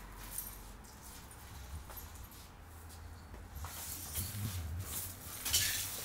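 A dog jumping up against a wooden door: scattered knocks and scrapes of its paws and claws on the door and the tiled floor, busier in the second half, with the sharpest knock near the end.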